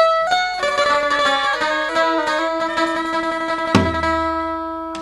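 Channel logo sting music: a quick run of short pitched notes, then about three-quarters of the way through a single deep boom, after which the chord rings on and slowly fades.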